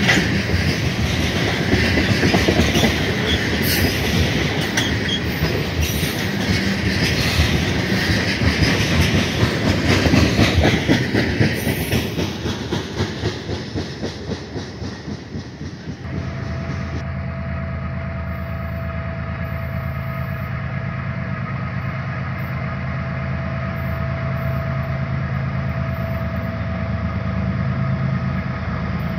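Freight train of tank cars rolling past, wheels clicking over the rail joints, the sound fading away after the last car passes about twelve seconds in. About sixteen seconds in it gives way abruptly to a steady low engine hum.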